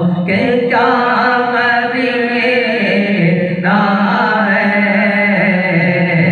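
A solo voice singing a naat in long, wavering held phrases over a steady low drone. A new phrase begins about three and a half seconds in.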